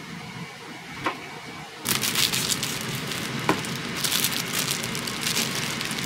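Mushrooms and ginger sizzling and crackling in a frying pan, the sizzle starting suddenly about two seconds in over a steady low hum. There are a couple of light clicks, about a second in and again past the middle.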